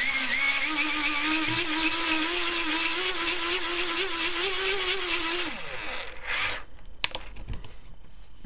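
Hand-crank dynamo and gearing of a Uni-com wind-up radio whining as the handle is spun fast, charging the radio's built-in rechargeable battery. The pitch holds steady, wavering slightly, then falls away as the cranking stops about five and a half seconds in. A single click follows about a second later.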